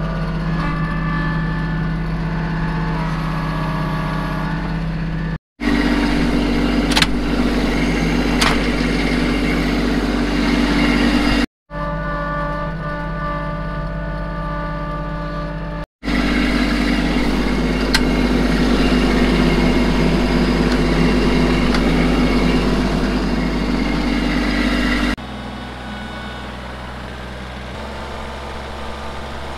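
Compact front-loader tractor's engine running steadily, heard from inside the cab, in several segments that cut off abruptly. About 25 seconds in it drops to a quieter, steadier run, heard from outside the tractor.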